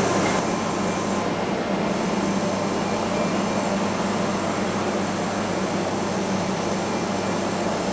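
Steady mechanical hum: an even rushing noise with a low drone under it.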